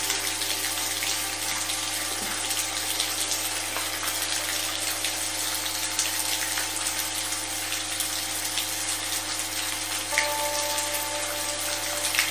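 Steady rain with many small drop ticks, over a low sustained electronic tone. A few soft held synth notes come in about ten seconds in.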